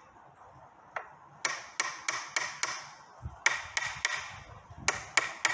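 A hammer tapping gently, metal on metal, on a CV joint's inner race to drive it down the splined axle half-shaft until the groove for the spring clip shows. About a dozen light taps come in short runs of three to five, with brief pauses between.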